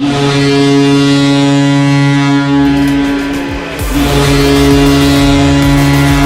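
Ice hockey goal horn of Sweden's women's team sounding a long, deep blast, then a second blast about four seconds in. Music with a heavy beat comes in between the blasts and plays under the second one.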